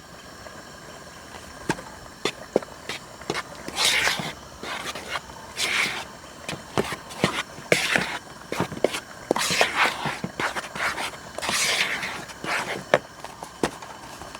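Spoon working through a bowl of dry flour and cornstarch, scraping and tapping against the bowl. Short swishing strokes come about every two seconds among many light clicks.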